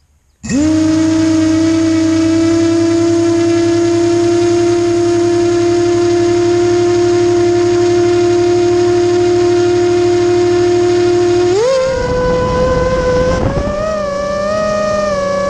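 Vortex 250 Pro FPV racing quadcopter's motors and propellers starting up with a loud steady hum that holds one pitch. About twelve seconds in, the pitch rises sharply as throttle is added, then wavers up and down as the throttle is worked.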